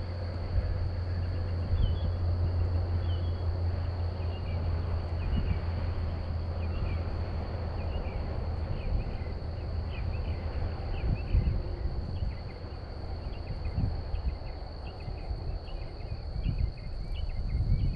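Insects, crickets by the sound of it, droning steadily on one high note, with scattered short chirps above and irregular low rumbling from wind on the microphone. A low steady hum underneath stops about eight seconds in.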